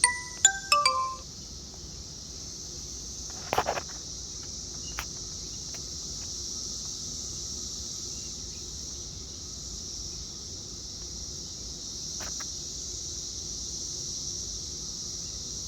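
Steady high chorus of insects, likely crickets, outdoors. A few light clinks ring in the first second, and a short knock comes about three and a half seconds in.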